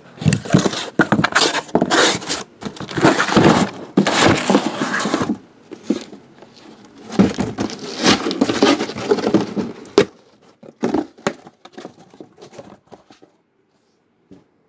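Cardboard shipping box being ripped open and unpacked: long stretches of cardboard and packaging tearing and scraping, a sharp knock about ten seconds in, then a few faint clicks of handling.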